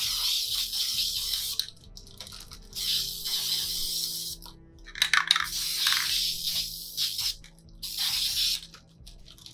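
Aerosol can of black spray paint hissing in four short bursts of a second or so each, with brief pauses between them.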